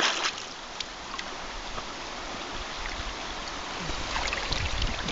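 River water flowing with a steady rushing sound, with a few short splashes near the start and again about four seconds in.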